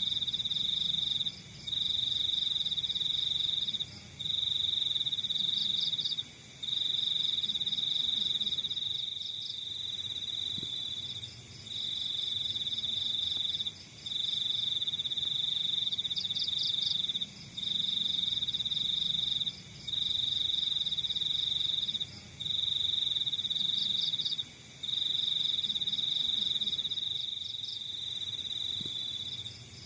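Crickets trilling: a steady high-pitched trill in bouts of about two seconds, each broken off by a brief pause, with fainter, higher chirping from other insects over it.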